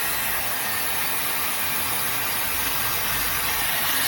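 MESCOMB 5-in-1 hot air styler (hair dryer brush) running, a steady rush of blowing air.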